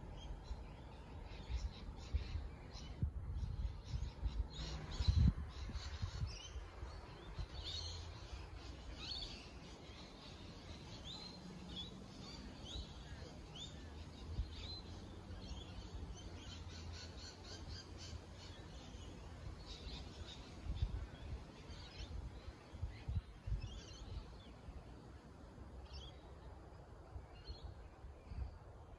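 Several birds chirping and calling in short, quick rising and falling notes, over an irregular low rumble with occasional thumps.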